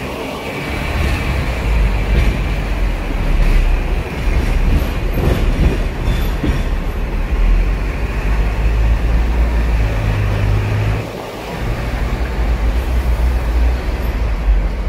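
Hong Kong double-decker tram running along its street track, heard on board: a steady rumble of steel wheels on the rails and the tram's motor, with a few light clicks. It dips briefly about eleven seconds in, then picks up again.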